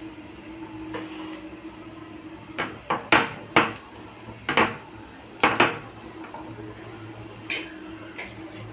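A spatula clinking and knocking against a non-stick kadhai while whole spices and dried red chillies are stirred in hot oil: a cluster of sharp clinks from about two and a half to six seconds in and one more near the end, over a steady low hum.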